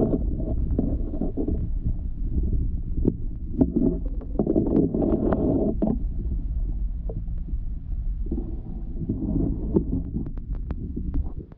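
Muffled underwater pond sound picked up by a camera held under the water: a steady low rumble with sloshing and scattered clicks and knocks.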